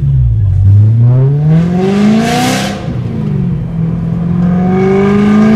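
BMW E92 M3's 4.0-litre V8 accelerating hard through a full IPE valved exhaust, heard from inside the cabin. The engine note rises for about two seconds, drops with an upshift around the three-second mark, and rises again. It is loud and raspy.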